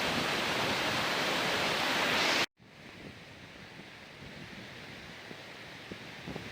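Steady roar of glacier-fed mountain waterfall water. About two and a half seconds in it cuts off abruptly to a much quieter rushing, with wind buffeting the microphone.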